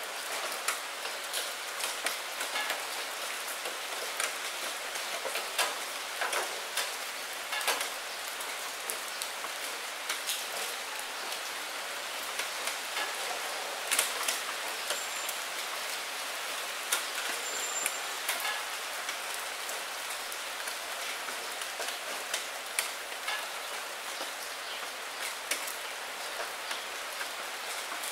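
Steady rain on a glass window: an even hiss with irregular sharper drops tapping through it.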